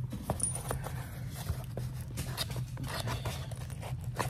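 A puppy scuffling against a cardboard shipping box: irregular light scratches, taps and rustles as it paws and noses at it, over a steady low hum.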